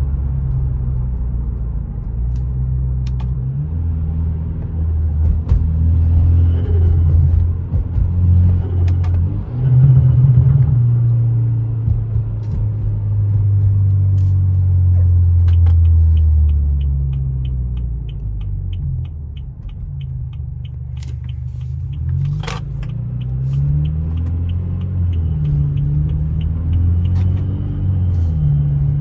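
BMW F30 328i's 2.0-litre turbocharged four-cylinder engine running under way, its note rising and falling as the car accelerates and changes gear. A quick, even ticking runs for several seconds past the middle, and there is one sharp click shortly after it stops.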